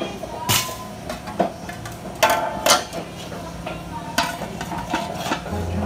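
Metal cooking pots clanking and knocking as they are handled and set down, a handful of separate knocks with the loudest two a little past two seconds in.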